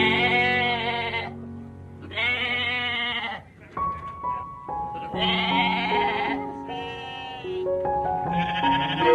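An animal bleating five times, each bleat about a second long with a quavering pitch, over calm background music with soft sustained notes.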